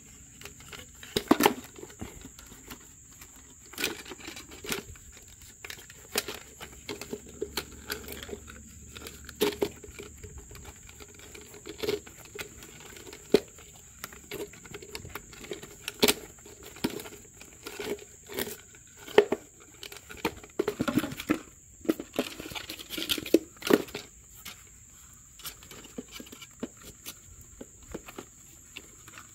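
Irregular scratching, crinkling and sharp knocks of hands-on handling or craft work, coming in uneven clusters. A faint steady high whine runs underneath.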